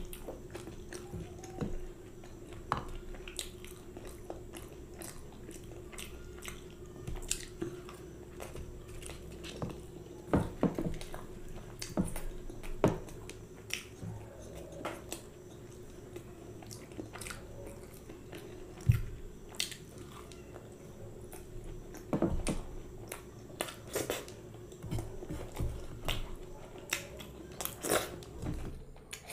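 Close-miked chewing and biting of fried Indian flatbread with curry: soft wet mouth smacks and clicks with occasional crisp crunches, irregularly spaced, over a faint steady hum.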